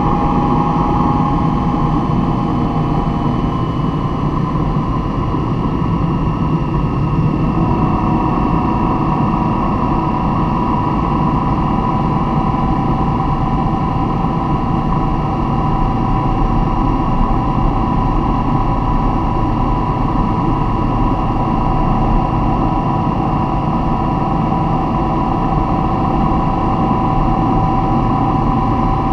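Steady vehicle engine and road noise with a constant whine whose pitch shifts slightly about seven seconds in.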